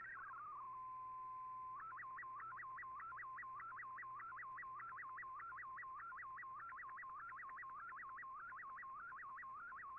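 Shortwave Radiogram MFSK digital signal from an Icom IC-R8600 receiver. A burst of hopping text tones trails off, a steady single tone holds for about a second, then the MFSK picture transmission begins: a warbling tone sweeping up and down about five times a second as the image is sent line by line.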